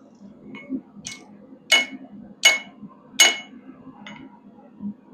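Hammer blows on the heated end of a quarter-inch square steel bar over an anvil edge, bending it: a few light taps, then three hard ringing strikes about three-quarters of a second apart, and one lighter tap near the end.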